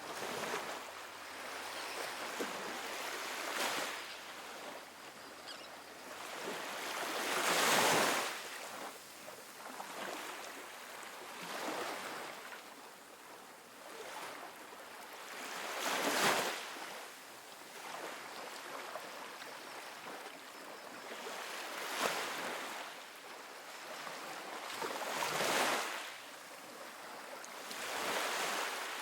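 Small ocean waves breaking and washing onto a sandy beach, a steady hiss of surf that swells with each wave every few seconds, the biggest breaks about eight and sixteen seconds in.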